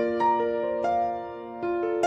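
Background music: slow keyboard notes struck one after another and left ringing over each other.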